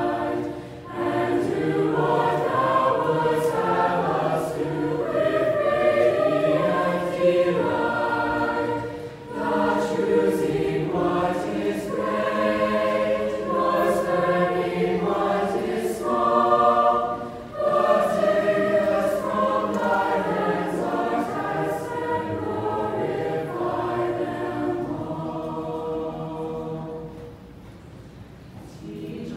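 Large mixed choir of young men's and women's voices singing unaccompanied, in phrases with short breaks between them, growing quieter near the end.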